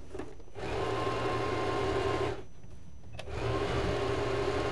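Usha Janome Fashion Maker electric sewing machine running, stitching a decorative embroidery stitch. It runs in two bursts of about two seconds each, with a short stop between.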